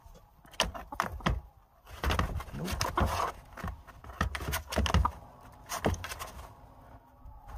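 A chicken scuffling in a cardboard box: claws scratching and wings brushing against the cardboard in an irregular run of sharp knocks and rustles, densest about two to three seconds in.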